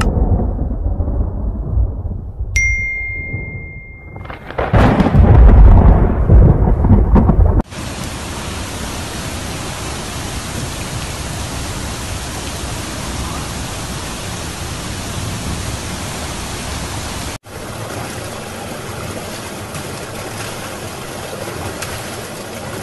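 Thunder rumbling, with a short steady electronic chime partway through, then a loud thunderclap rolling for about three seconds. From about 8 s in it gives way to the steady hiss of torrential rain and rushing runoff, with one brief dropout near the middle.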